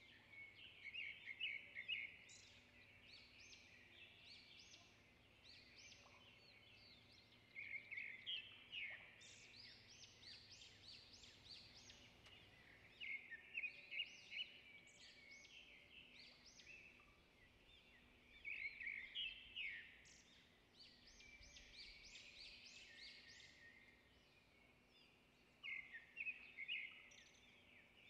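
Faint birdsong: a burst of rapid, trilling bird phrases about every five seconds, with softer chirping in between.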